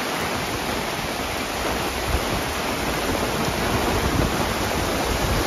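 Torrential rain pouring down, with muddy floodwater rushing along both edges of a road: a steady, even rush of water with no pauses.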